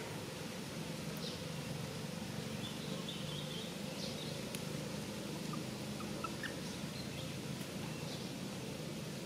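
A steady low outdoor hum with a few faint, short, high-pitched animal calls scattered through, including a couple of quick rising chirps a little past the middle.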